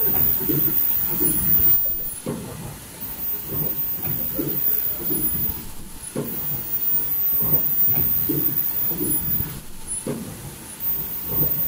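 N95 folding-mask production line running, its machinery knocking in a steady cycle about once a second. A thin, very high whine cuts in and out for a few seconds at a time.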